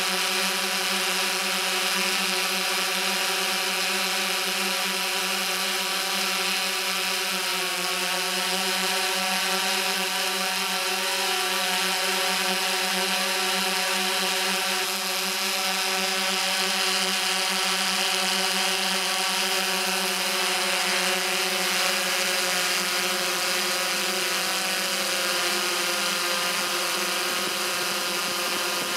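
DJI S1000 octocopter's electric motors and propellers buzzing steadily in flight, a dense stack of tones with a slight dip in pitch about eight seconds in.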